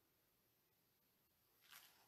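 Near silence: room tone, with one brief faint noise near the end.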